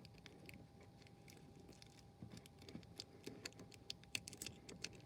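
Near silence with faint scattered clicks and ticks that come more often in the second half, over a faint steady hum.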